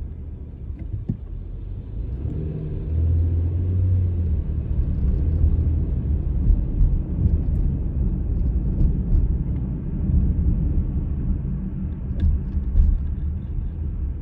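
Car driving on a road, a steady low rumble of engine and tyres heard from inside the cabin, growing louder about two seconds in.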